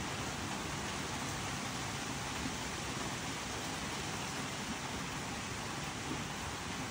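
Steady rain falling on a leafy tree, an even hiss with no let-up.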